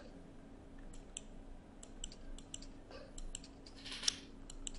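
Faint, scattered clicks of a computer mouse and keyboard, about a dozen over a few seconds, with a low steady hum beneath and a brief hiss about four seconds in.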